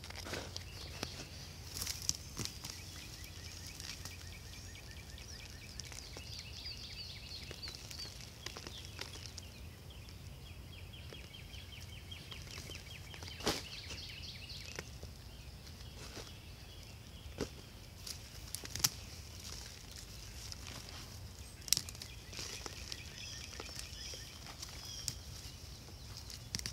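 Faint outdoor sound: the leaves and stems of potato plants rustling and snapping now and then as a gloved hand works through them, with small birds chirping in quick trills in the background over a steady low hum.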